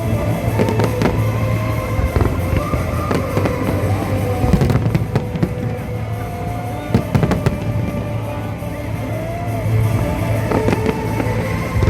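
Fireworks going off: many sharp bangs and cracks in quick succession, with music playing at the same time.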